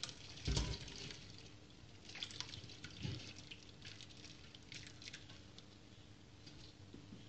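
Broth poured from a saucepan through a wire-mesh strainer into a stockpot: faint splashing and dripping, with a couple of soft thuds as solids drop into the sieve.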